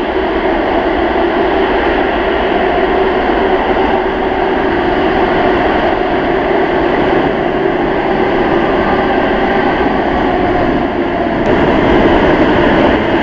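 Jet engines of an ANA Airbus A380 (Rolls-Royce Trent 900s) running steadily at low thrust as the airliner taxis, a continuous rushing hum with a faint steady whine in it, a little louder near the end.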